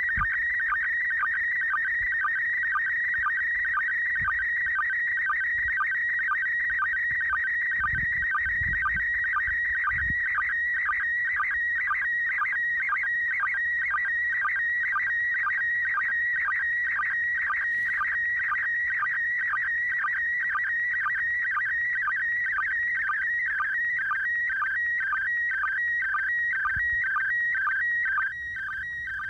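Slow-scan television (SSTV) image signal from the International Space Station, received on a ham radio: a shrill, warbling tone with an even, rapid beat, one beat for each line of the picture being sent. A few low thumps come in about a third of the way through, and the signal drops in level just before the end.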